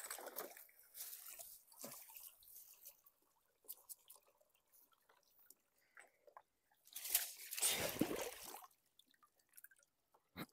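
Wet mesh fish trap being handled over the water: the net rustles and water drips and splashes off it in short scattered bursts, with one longer, louder splash about seven seconds in.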